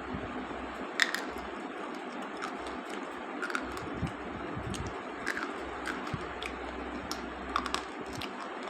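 Slate pencils giving a dozen or so sharp, irregular clicks and cracks, the loudest about a second in, over a steady background hiss.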